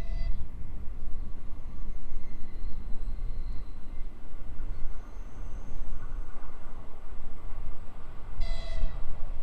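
Czech diesel locomotive running with a deep, steady rumble, sounding a short horn blast near the end; another horn note cuts off right at the start.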